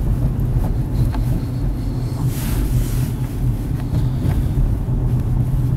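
Car moving slowly with a side window open: a steady low rumble of engine and road, with wind on the microphone.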